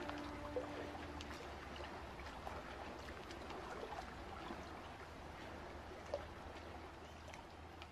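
Ambient recording of gently running stream water, an even trickle with small splashes and ticks, slowly growing quieter. The last held notes of music die away about a second in.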